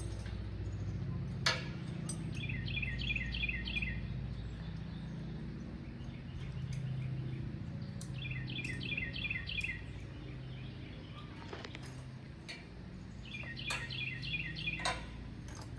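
A songbird sings a phrase of quick, evenly repeated chirps three times, over a steady low rumble, with a few sharp clicks.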